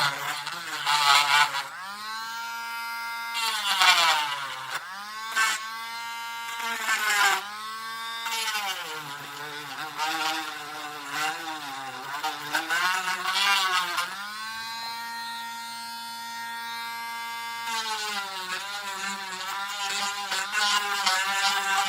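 Small electric power tool motor, likely a drill, run in repeated spells: it spins up, holds a steady whine for a few seconds, then winds down, several times over.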